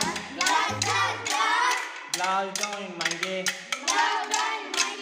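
Boys singing a Telugu Holi folk song together, with sharp clicks of kolatam sticks struck in time.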